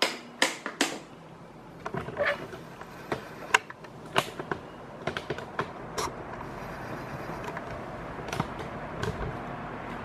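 An Arno Ultra Silence Force VD40 electric fan being switched on at its minimum speed: scattered clicks and taps, the loudest right at the start, then a steady rush of air from the running fan that settles in from about six seconds in and grows slightly.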